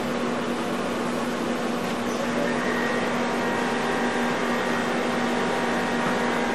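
CNC bed milling machine running with a steady mechanical hum, a faint higher whine joining about two seconds in.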